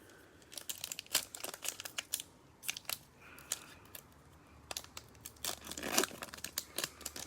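Trading card pack wrappers crinkling and tearing as packs are ripped open by hand: a run of sharp crackles that gets busier about five seconds in.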